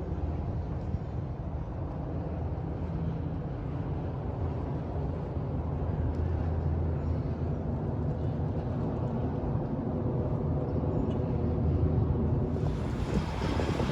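Disney Skyliner gondola running: a steady low rumble and hum. Near the end it turns into a louder, brighter rush like wind.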